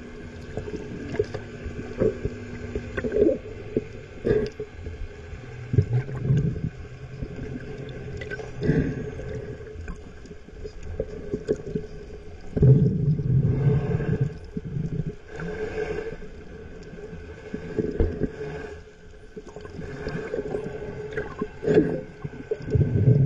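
Muffled underwater sound picked up by a GoPro in its waterproof housing while snorkeling: irregular water swells and thumps over a faint steady hum.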